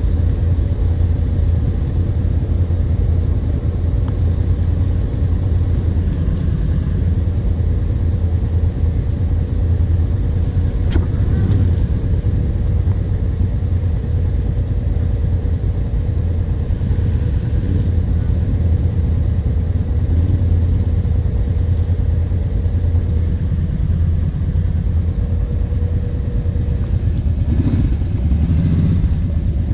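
Kawasaki KVF 750 Brute Force's V-twin engine running steadily at low revs as the quad crawls along a muddy trail.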